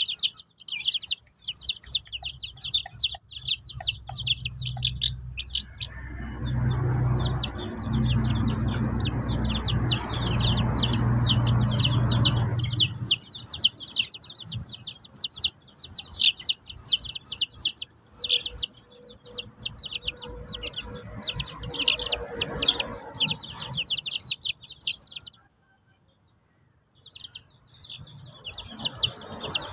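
Young chicks peeping continuously, a rapid run of short, high, falling peeps several times a second. From about six to twelve seconds a low rumbling noise runs beneath them, and near the end the peeping breaks off for about a second before starting again.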